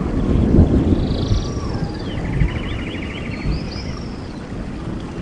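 Rainforest ambience: a steady low rush of falling water with several birds calling over it in rapid trills and short whistles, slowly fading out.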